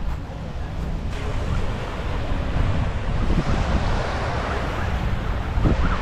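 Small surf breaking and washing up the sand in a steady hiss, with wind rumbling on the microphone.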